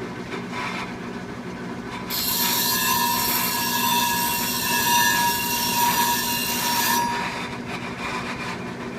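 Clipper-blade sharpening machine running with a steady hum. From about two seconds in until about seven seconds, a clipper blade is ground on the freshly grit-charged spinning plate, a loud hissing scrape with a steady squealing tone.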